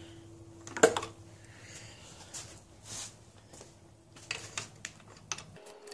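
Scattered clicks and knocks of hands handling the compression gauge hose and spark plug leads on an outboard powerhead, the loudest just under a second in, over a faint steady hum.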